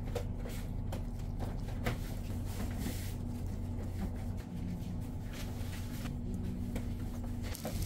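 Steady low hum of kitchen equipment, with scattered light taps and clicks as meat patties are set down on burger buns.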